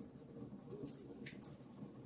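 Wood fire crackling: a faint steady low rumble of flames with scattered sharp pops and snaps, several close together about halfway through.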